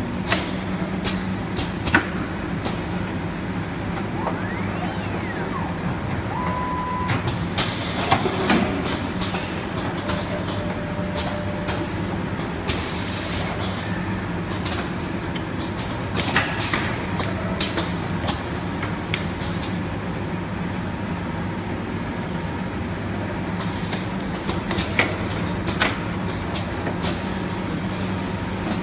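Automatic carbon block filter packing and assembling machine running: a steady hum with frequent irregular clicks and clacks from its pneumatic actuators, and a brief hiss of air about thirteen seconds in.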